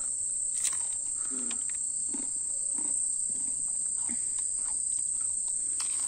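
A steady high-pitched chorus of crickets at night, with faint crunching chews of a crisp fried onion samosa.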